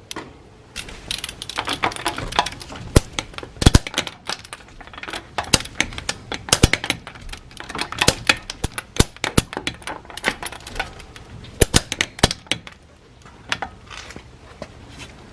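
Metal parts clinking and clicking in a quick, irregular run of sharp knocks, like hand tools and wheel nuts being handled.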